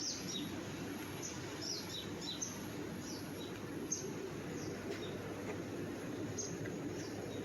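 Small birds giving short, high, falling chirps, scattered irregularly, over a steady low background rumble, with a faint steady high-pitched tone above.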